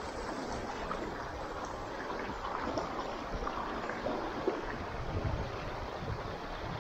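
Shallow mountain stream running over rocks and boulders: a steady rush of flowing water.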